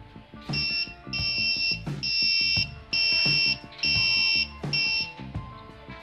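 Security alarm's piezo buzzer beeping six times, about once a second, each beep a shrill high tone: the vibration-sensor alarm has been set off. Background guitar music plays under it.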